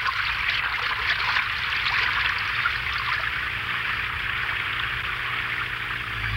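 Water gushing steadily out of a breach in a metal wall, a cartoon sound effect of rushing water.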